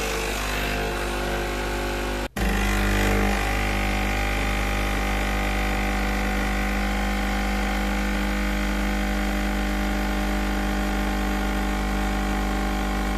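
Krups Nespresso capsule machine's pump running steadily with a low hum as an espresso pours into a mug, with a brief break a little over two seconds in. The brew runs long because the cup button is held to reprogram the cup size.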